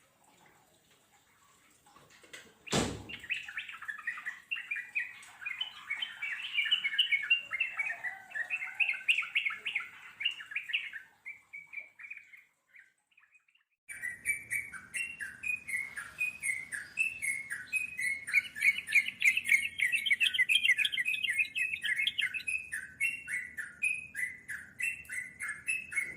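Yellow-vented bulbuls (trucukan) singing in long, fast runs of short bubbling notes, the rapid extended song called ngeropel. A sharp click opens the song about three seconds in. It stops for about two seconds in the middle, then starts again abruptly with a higher chatter over it.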